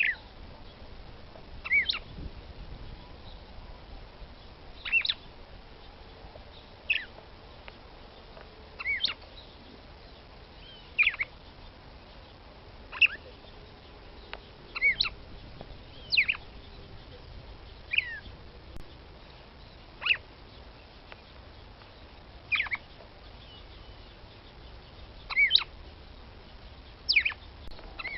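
Female red-cowled cardinal (galo-de-campina) calling: a short, sharp note about every two seconds, each sweeping quickly down in pitch, some given as a quick double note. It is the female's call that bird keepers use to stir a male into singing.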